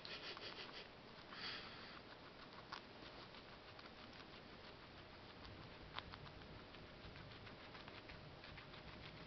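Guinea pig chewing parsley: faint, rapid crunching clicks of its teeth on the leaves and stems, with a couple of sharper single clicks.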